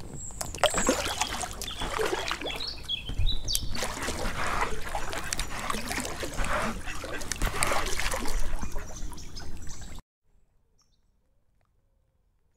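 Inflatable kayak paddled along a canal: paddle blades splashing and water trickling and dripping off them in an uneven rhythm. The sound cuts off suddenly to silence about ten seconds in.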